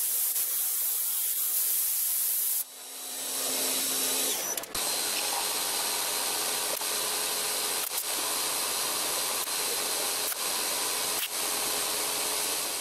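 CNC milling machine cutting aluminium, a steady hiss of cutting noise. About three seconds in the sound dips and builds back up into a steady machining sound with a faint whine and light ticks every second or so.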